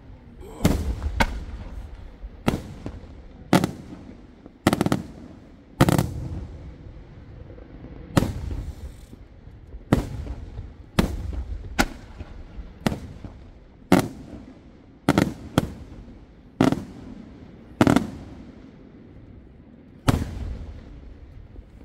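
Aerial firework shells bursting overhead one after another, a loud bang about every second, each followed by a short echoing tail.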